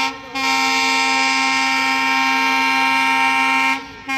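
Diesel locomotive's horn sounding in blasts at one steady pitch: a blast that cuts off just after the start, then one long blast of about three and a half seconds, and another short blast beginning near the end.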